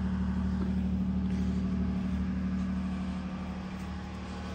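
A steady, low machine hum at one constant pitch, slowly growing fainter.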